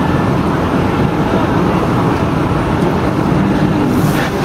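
Fire truck's diesel engine running steadily, a loud low rumble, with a short hiss near the end.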